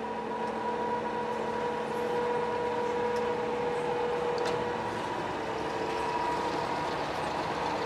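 Zbrojovka BK-5 external cylindrical grinder running with its grinding wheel spinning, giving a steady machine hum with a held whine.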